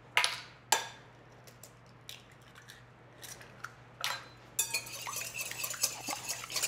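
Two sharp taps near the start as an egg is cracked against a glass mixing bowl, a few light clicks, then from about two-thirds of the way in a wire whisk beating eggs, clicking rapidly against the glass.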